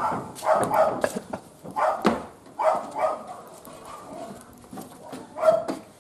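A dog barking repeatedly in short bursts, with several pauses between barks.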